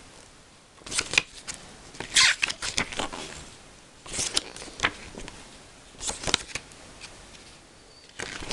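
Pages of a small paper booklet being turned by hand: about five short bursts of paper rustling, one every second or two.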